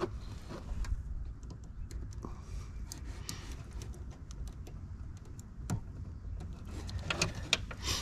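Small plastic clicks and handling noises as a 7443 LED wedge bulb is pushed into its turn-signal socket, with one sharper click a little before six seconds in and a few more near the end, over a low steady hum.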